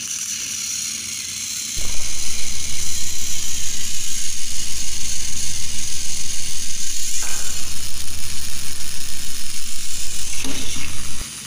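Battery-powered Trackmaster toy train engines running, a steady rhythmic pulsing of about five beats a second. It starts about two seconds in and cuts off suddenly near the end.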